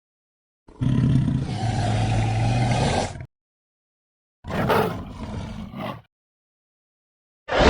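Made-up Coweitlosaur monster sound effect: a roar lasting about two and a half seconds, then after a gap of dead silence a shorter call that starts loud and fades, and another roar beginning near the end.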